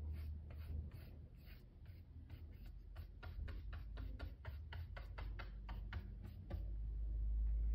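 One-inch chip brush laying white chalk paint onto a wooden board, the bristles scratching across the wood in quick short strokes, several a second and thickest in the middle. Near the end a low rumble comes in and the sound grows louder.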